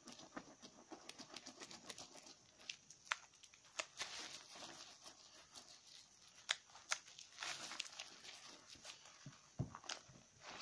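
Hands squeezing and lathering a slightly soaked bar of soap and a sponge in thick foam: wet squelching with many small sharp clicks and crackling pops of the lather.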